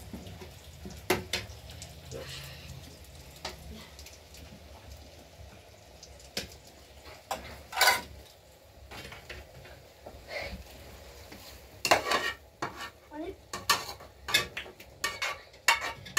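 Metal utensils clinking and scraping against pots and pans as food is stirred, in irregular short knocks that come thicker about halfway and again near the end, over a faint steady sizzle of frying.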